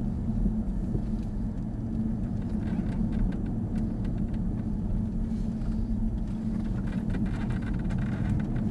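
Jaguar F-Type's supercharged 3.0-litre V6 running steadily at low road speed through a corner, heard from inside the cabin with road and tyre noise. Light scattered clicks come in about a third of the way through.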